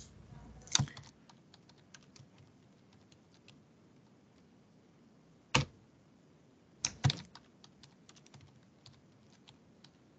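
Typing on a computer keyboard: a run of light key taps, with a few louder clicks about a second in and again past the middle.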